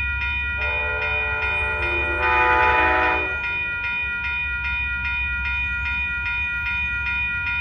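Amtrak P42DC locomotive's horn sounding one long blast that starts about half a second in, grows louder around two seconds and stops a little after three seconds. Under it, a railroad crossing bell rings with rapid, even strokes.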